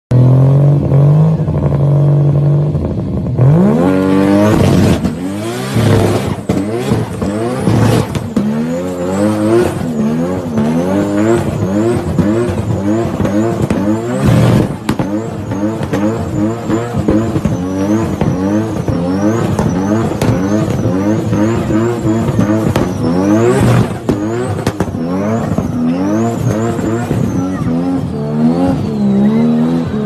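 Nissan Skyline R32 GT-R's twin-turbo straight-six idling, then revved hard about three and a half seconds in and held at high revs in repeated rising and falling surges during a burnout. From about nine seconds a high wavering tyre squeal joins in.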